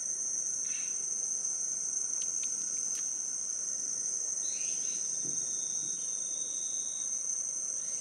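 Steady, high-pitched chorus of insects droning at two constant pitches, with a few faint clicks and a brief thin whistle past the middle.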